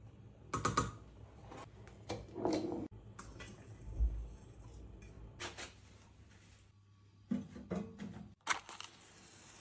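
Scattered clicks, knocks and rustling of objects being handled, with a dull thump about four seconds in.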